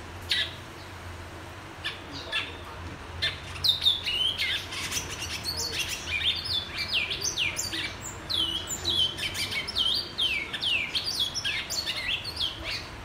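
Twa-twa (bicudo) seed-finch singing: a few single chirps, then from about three and a half seconds in a continuous song of quick whistled notes that slide downward, until near the end.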